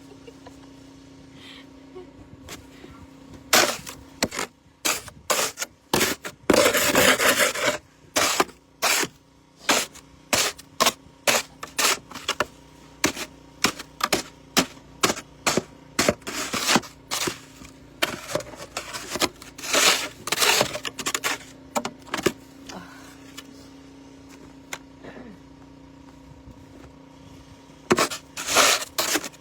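Snow shovel scraping and chopping at snow, in many quick strokes that come in runs, with a quiet gap of several seconds late on before the strokes start again.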